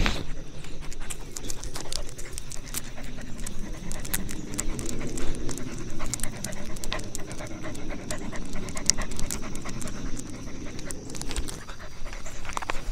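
A dog panting steadily, with scattered light clicks and knocks.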